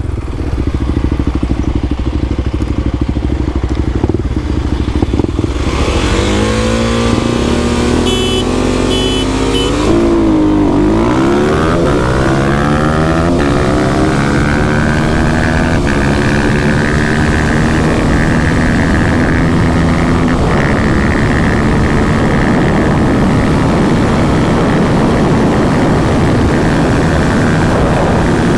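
Kawasaki KLX300 single-cylinder dirt bike engine running low for a few seconds, then accelerating hard: the pitch climbs and drops back at each upshift through the gears. After that it runs steadily at high speed.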